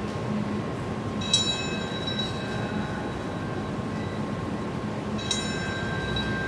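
A bell tolling, struck twice about four seconds apart, each stroke ringing on with several high, slowly fading tones over a steady city hum.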